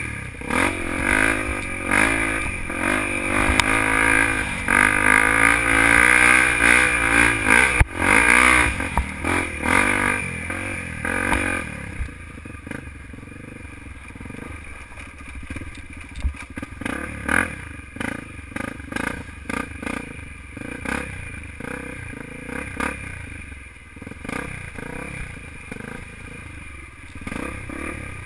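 Dirt bike engine revving up and down under riding on a rough dirt track, loud for about the first twelve seconds. It then drops to a quieter, low running, with rattling and knocks from the bike over the bumpy ground.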